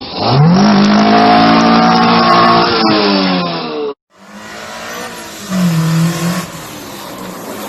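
A car engine revved up, held at high revs, then dropping back; after an abrupt cut, a car engine running more quietly with a brief rev.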